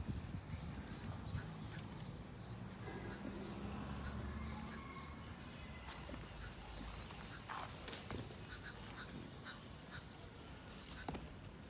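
Faint outdoor ambience: a low rumble with a run of small high chirps, about three a second, in the first few seconds, and a few sharp clicks later on.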